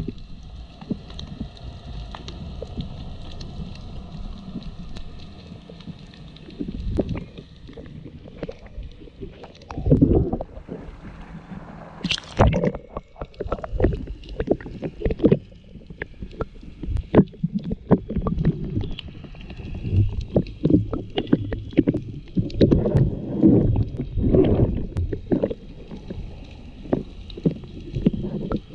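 Underwater sound from a submerged camera: irregular low rumbling of water moving around the housing, with many sharp clicks and crackles. A faint steady hum of several tones sits underneath for about the first third, then fades.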